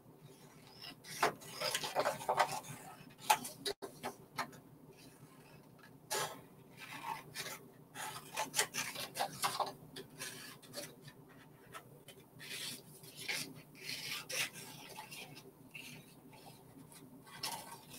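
Scissors cutting through cardstock: an irregular run of snips and scrapes, with the paper rustling as it is turned.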